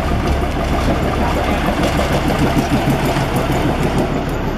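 A motor vehicle's engine running steadily, deep and even.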